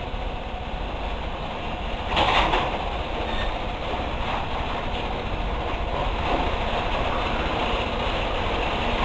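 Genie Excelerator screw-drive garage door opener running on its new motor drive board, the door travelling along its track with a steady rumbling run and a louder surge about two seconds in. The opener is working again after the board swap.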